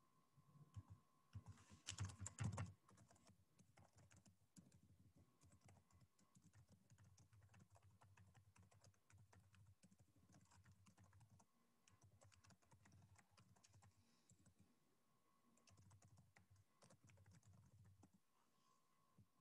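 Faint typing on a computer keyboard: irregular key clicks, with a louder flurry of keystrokes about two seconds in.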